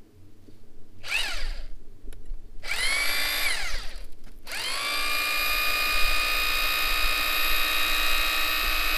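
Power drill boring into a large stone to make holes for splitting wedges. Two short runs, its motor whine rising and falling in pitch, then from about halfway it runs steadily.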